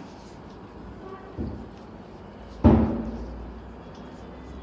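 Two dull thumps during a chiropractic adjustment on the treatment table: a lighter one about a second and a half in, then a much louder one a little past the middle that dies away quickly.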